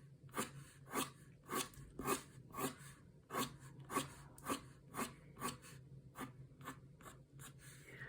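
A 0.7 ink pen scratching short strokes over painted watercolour paper, about a dozen quick lines at roughly two a second, growing fainter near the end.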